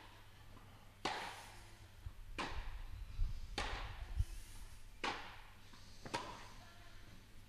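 Tennis ball struck back and forth by racquets in a baseline rally: five sharp hits, about one every second and a quarter, each ringing briefly in the echoing indoor hall.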